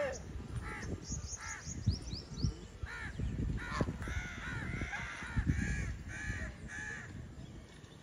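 Domestic geese honking: short nasal calls about once a second, crowding together into a longer run in the middle. A quick falling series of high chirps sounds about a second in.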